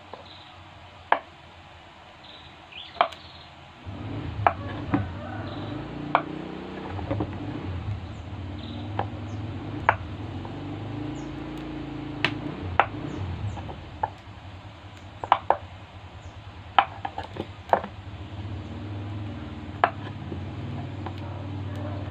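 Kitchen knife cutting through blocks of tempeh and knocking on a wooden cutting board: sharp, irregular knocks every second or so. A low hum comes in about four seconds in.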